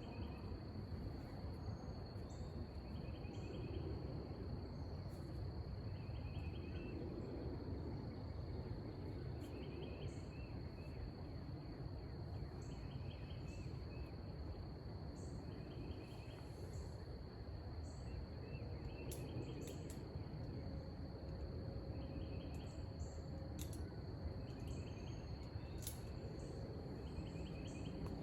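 Night insects: a steady high-pitched insect drone, with a short pulsed chirp repeating every two to three seconds, over a constant low rushing noise.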